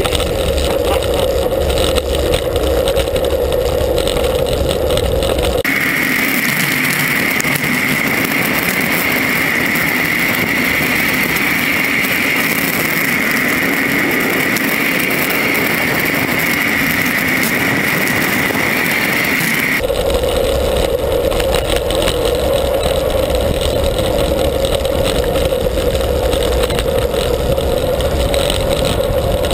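Steady wind rush and road noise on a handlebar-mounted action camera's microphone as a bicycle descends at speed. About six seconds in, the noise abruptly turns thinner and hissier with the low rumble gone, and it switches back near twenty seconds.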